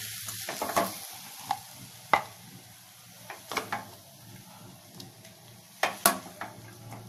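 A spoon scraping and knocking against a cooking pan as the freshly cooked grated-carrot stir-fry is served out, with scattered sharp knocks, the loudest about two seconds in and again about six seconds in.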